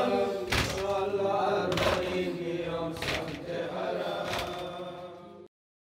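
Group of men chanting a Persian noha (Shia lament), holding out the last line's note while it fades. A sharp chest-beating (matam) strike lands about every second and a quarter. The sound fades and cuts off about five and a half seconds in.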